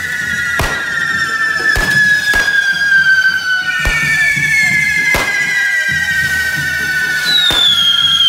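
Carretilles (spinning correfoc fireworks on devils' forks) whistling: several overlapping shrill whistles slide slowly down in pitch, with new ones starting about halfway through and again near the end. Sharp firecracker bangs go off about seven times at uneven intervals.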